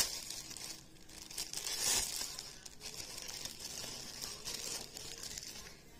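A mailing package being torn open and its wrapping crinkled by hand, a continuous rustle with its loudest tear about two seconds in, dying away near the end.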